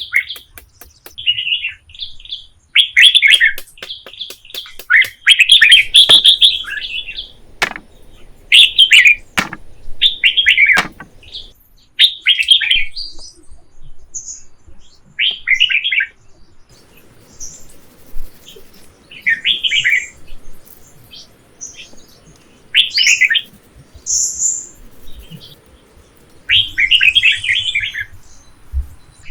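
Small birds chirping in quick repeated bursts of high notes every second or two, with fainter, higher calls between them. A few sharp knocks come in the first half.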